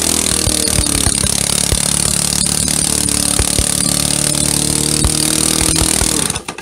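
Briggs & Stratton Quantum single-cylinder lawnmower engine running loud at full throttle with no muffler, with occasional knocks under the deck. It then cuts out suddenly near the end, when the blade bogs in a big patch of dirt. The stop is abrupt enough to be taken at first for a thrown rod.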